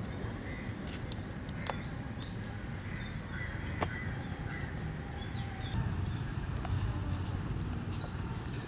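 Wild birds chirping on and off, with one clear rising whistled call about six seconds in, over a steady low rumble and a few sharp clicks.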